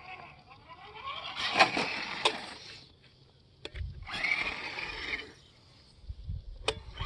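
Small electric RC rock crawler's motor and drivetrain whining in two throttle bursts, the pitch rising and falling, with sharp knocks of the truck on rock.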